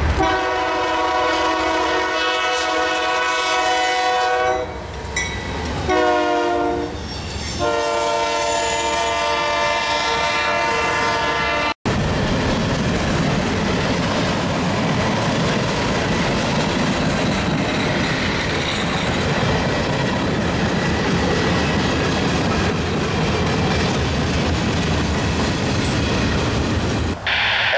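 Diesel freight locomotive's multi-chime air horn sounding a series of long blasts, one of them sliding down in pitch. It cuts off abruptly about halfway through, and the steady rumble and clickety-clack of freight cars rolling past takes over.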